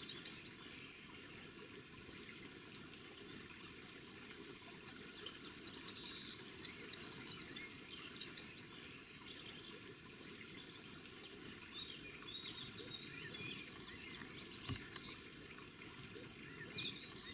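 Wild birds chirping and singing, with a rapid high trill about seven seconds in and again near thirteen seconds, over a steady low rushing background. Two short sharp clicks stand out, one about three seconds in and one about eleven seconds in.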